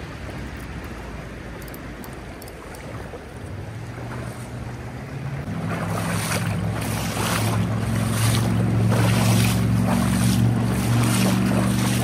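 Fast creek water rushing over a shallow riffle, with wind buffeting the microphone. About halfway through, a steady low hum joins in and the whole sound grows louder.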